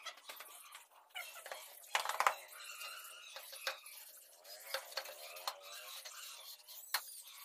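Scraping and knocks of a trowel and a long straightedge worked over a bed of damp sand-cement floor mortar, with the loudest knock about two seconds in and a few sharper clicks after.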